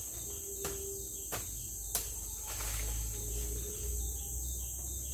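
Sharp wooden knocks, three in the first two seconds, as a long pole strikes the tree and its branches, over a steady high-pitched chorus of forest insects.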